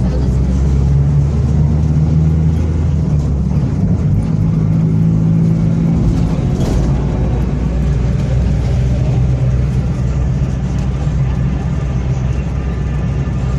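Mercedes-Benz OF-1722M bus running under way, its diesel engine pulling steadily with a deep drone from the cardan driveshaft. The engine note shifts downward about halfway through.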